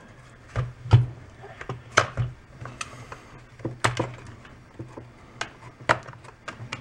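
Irregular light clicks and knocks of hard plastic chainsaw housing parts being handled and worked apart by hand, over a low steady background hum.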